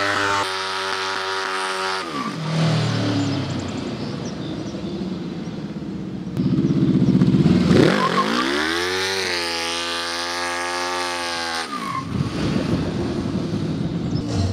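Homemade go-kart's motorcycle engine running at high revs. It drops off about two seconds in, revs up hard again around eight seconds, holds, and falls back near twelve seconds.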